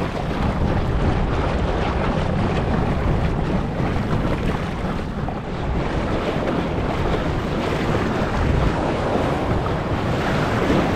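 Wind buffeting the microphone over the steady wash and hiss of ocean waves in a rough sea, with no break in the noise.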